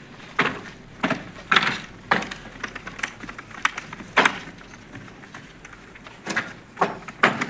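Irregular sharp clacks and knocks, about ten in several seconds, of fired bricks knocking against each other as workers unload them from the kiln.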